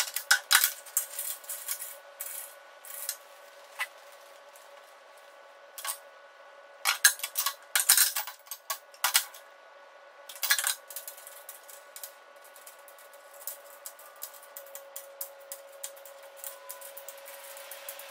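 Steel bolts, nuts and black steel seat-frame tubes clinking and clattering as they are handled, in clusters of sharp metallic clinks with quieter ones between. A faint steady hum runs underneath.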